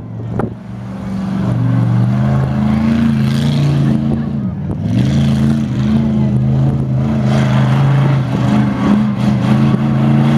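Monster truck's engine running under throttle as it drives across a dirt field, its note dipping and climbing again a couple of times as the throttle changes.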